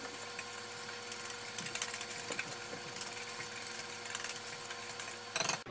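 Whisk beating dry baking ingredients (flour, baking soda, baking powder, salt) in a mixing bowl, a rapid run of small ticks and scrapes as the whisk strikes the bowl's sides.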